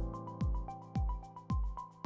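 Background electronic music with a steady kick-drum beat, about two beats a second, and sustained synth tones; a fuller chord comes in right at the start.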